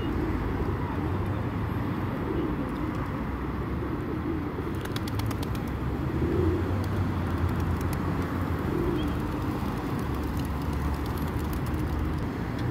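A flock of feral pigeons cooing, low coos coming every couple of seconds, over a steady low rumble of road traffic. Runs of light sharp clicks come about five seconds in and again near the end.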